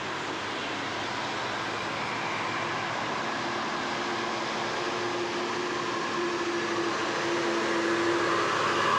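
Bus engine running on a climb, a steady mechanical noise with a low hum that grows slowly and evenly louder.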